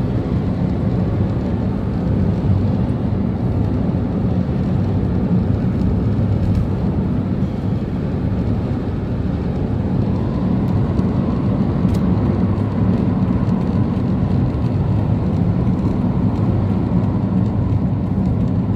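Steady low road and engine rumble of a moving vehicle, heard from inside while driving, with a couple of faint ticks.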